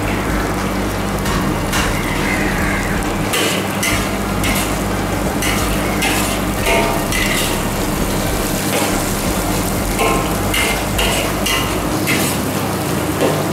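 Chopped shallots, chillies and pounded garlic and tempe sizzling in a hot steel wok, with a steel spatula repeatedly scraping and clacking against the pan as the spice base is stir-fried. A steady low hum runs underneath.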